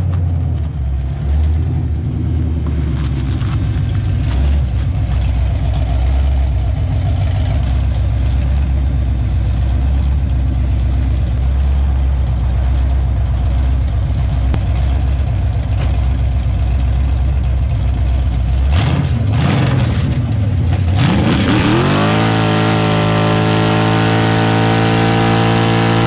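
Ford 387 stroker small-block V8 through open long-tube headers, running with a low, steady rumble for most of the time. Near the end it revs up quickly and is held at high rpm, as for a burnout.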